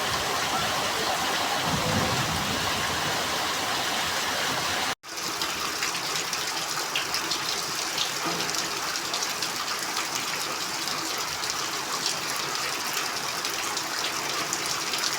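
Heavy rain pouring steadily. About five seconds in the sound breaks off for an instant at a cut and resumes with a sharper patter of drops and gushing water.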